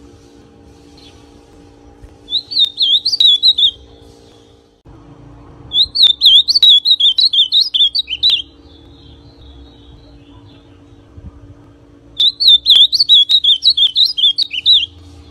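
Young male ultramarine grosbeak (azulão pardo) singing three short, fast warbling phrases, the first about a second and a half long and the other two about two and a half seconds each, over a faint steady low hum.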